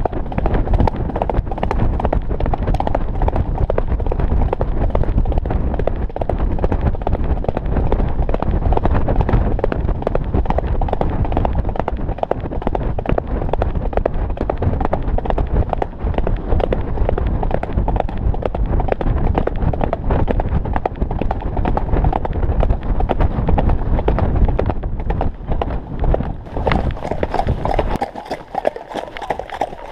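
Grey Andalusian horse cantering fast on a gravel forest track: quick hoofbeats under heavy wind rumble on the saddle-mounted microphone. Near the end the rumble drops away as the horse slows.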